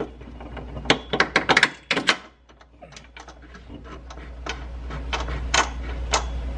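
Irregular sharp metallic clicks and clinks of nut-and-bolt hardware being handled and fitted by hand on a car's suspension arm, in a quick cluster in the first two seconds and then more spread out.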